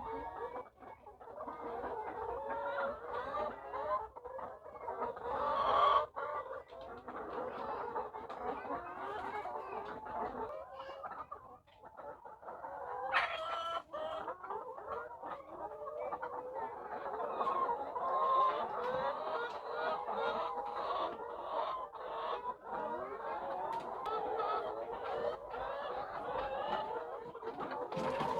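A large flock of layer hens clucking continuously, many birds calling over one another.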